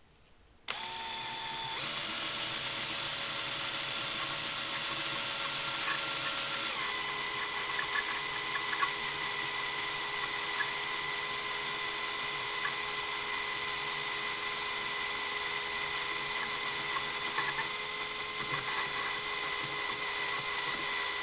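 Cordless drill running steadily at low speed as it drills out the small plug over a Suzuki GS550 Mikuni BS32 carburetor's pilot screw. The drill starts just under a second in, and its motor pitch shifts slightly about two and about seven seconds in, with a few faint ticks of the bit biting.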